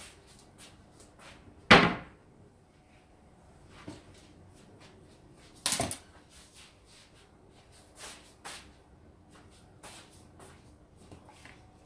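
Kitchen cupboard doors banging shut twice, about four seconds apart, the first the louder with a short low ring. Lighter knocks and clatter of things being handled follow.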